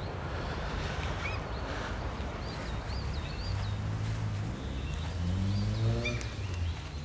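Small birds chirping in short repeated calls over outdoor background noise. A low, sustained music bed comes in about halfway.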